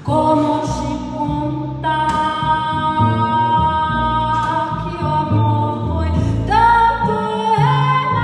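A woman sings long held notes, sliding up into a higher one near the end, while accompanying herself on a double bass whose low notes change underneath.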